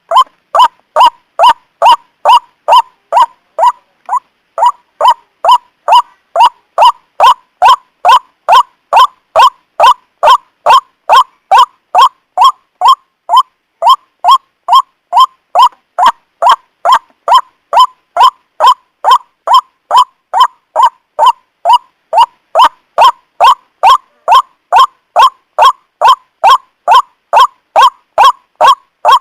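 White-breasted waterhen (ruak-ruak) call played as a trapping lure: a loud, rapid string of short honking 'ruak' notes, about two a second, breaking off briefly twice.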